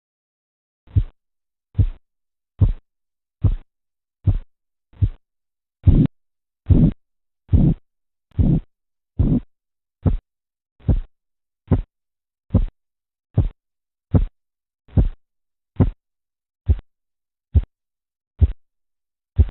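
Korotkoff sounds heard through a stethoscope over an artery as a blood pressure cuff slowly deflates: a run of about two dozen beats a little under a second apart, with silence between them. They begin as short taps, grow louder and longer through the middle, then become shorter and softer again near the end.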